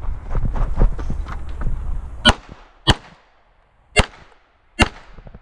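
Low rumbling movement noise and small clicks as the shooter moves between positions. Then a Beretta 92 9mm pistol fires four shots at uneven spacing, about half a second to a second apart, starting a little past two seconds in.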